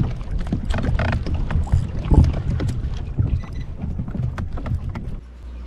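Water sloshing against a fishing kayak's hull, with wind on the microphone and scattered knocks and clicks. Near the end it cuts abruptly to a steady low hum.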